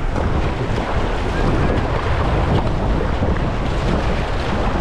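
Fast, muddy river rapid rushing around a racing kayak, with wind buffeting the microphone throughout.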